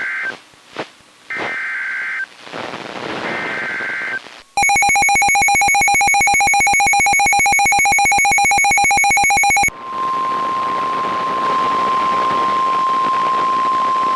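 Emergency Alert System tones over a weather radio: the end of one warbling SAME header data burst and two more, about a second each, then a loud buzzing two-tone attention signal for about five seconds, then a steady single-tone 1050 Hz warning alarm over radio hiss. The sequence opens a severe thunderstorm warning broadcast.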